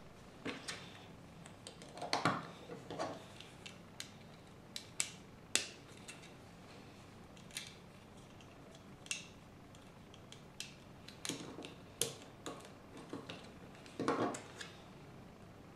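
Plastic Lego bricks clicking and snapping as they are pressed together and handled by hand. The clicks come irregularly, with a few louder clusters, about two seconds in and near the end.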